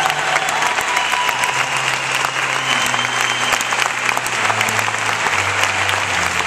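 Audience applauding, a dense steady clapping of many hands, with slow, held low music notes underneath.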